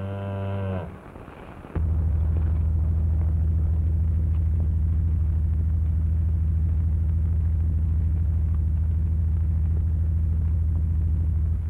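A cow's moo ends about a second in. Just under two seconds in, the steady low drone of a propeller airplane's engine starts and holds level.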